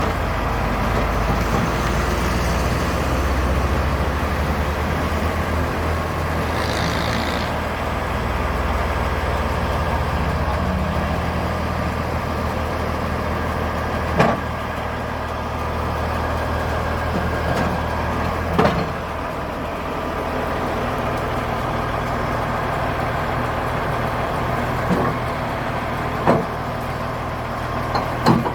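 Heavy diesel engine of a Wirtgen W2000 cold milling machine running steadily under load, with a few sharp knocks now and then.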